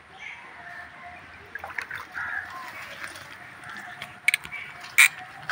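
Faint splashing and sloshing of pond water as a hooked catla is drawn out at the bank, with a few sharp knocks near the end.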